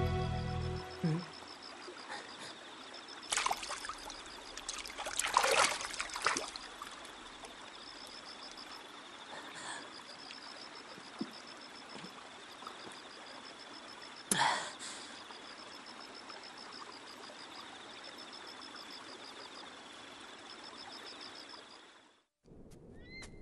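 Flowing stream running steadily under a high, pulsing chirp that comes in repeated groups. There are a few short, louder splashes of water: one about three seconds in, a cluster around five to six seconds and one at about fourteen seconds. The sound cuts off suddenly near the end.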